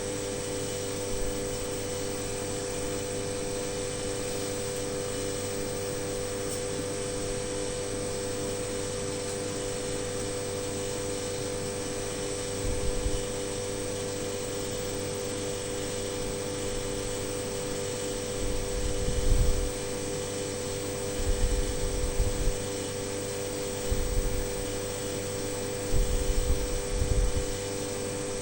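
Steady machine hum with two strong steady tones and a faint hiss above. Short low rumbles break in a few times in the second half.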